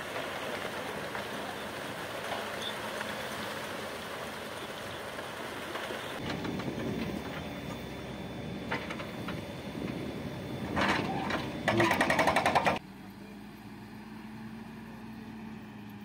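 Heavy construction machinery running, heard across several short cuts. First a steady, noisy engine and wind rush, then scattered clanks and knocks, and a loud fast rattle lasting about a second. After an abrupt cut comes a quieter, steady engine drone.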